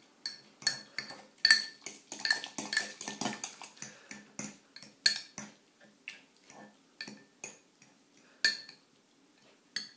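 Metal fork clinking and scraping against a ceramic bowl while mashing and stirring cooked apple compote: quick, irregular clinks, several a second, dropping away briefly near the end.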